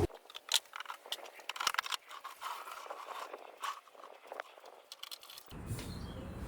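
A scatter of light clicks and short scrapes at uneven intervals over faint hiss. About five and a half seconds in, a steady low room rumble comes in.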